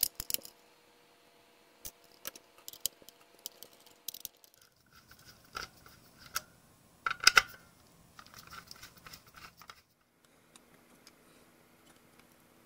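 A small screwdriver clicking and scraping against the plastic case of a digital kitchen scale as the screws in its base are backed out. The clicks and taps are irregular, with the sharpest cluster about seven seconds in. The last few seconds are much quieter.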